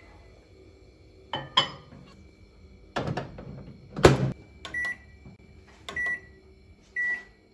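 Microwave oven being set: a few clicks and knocks, the loudest about four seconds in, then three short keypad beeps about a second apart.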